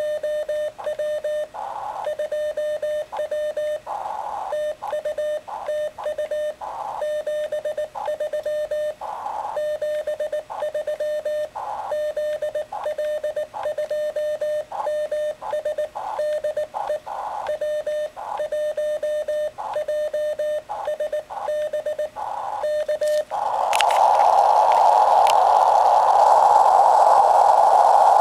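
Morse code (CW) from a homebrew 2-watt ham radio transceiver: a single steady tone keyed on and off in dots and dashes. About 23 seconds in the keying stops and a louder receiver hiss takes over.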